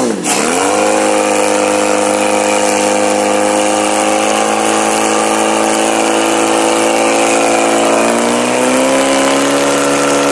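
Portable fire pump engine running hard at high revs, pumping water through the attack hoses. Its pitch dips sharply at the start and climbs back within half a second, holds steady, then rises a little about eight seconds in.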